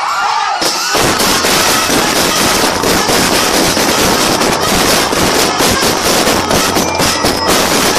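A string of firecrackers going off: a continuous, dense crackle of rapid small bangs that starts about a second in.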